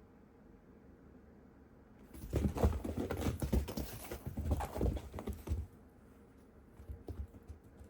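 A cat's paws thumping and scrabbling on the floor in a quick flurry lasting about three seconds, as it pounces and scampers after a teaser toy, followed by a few faint taps.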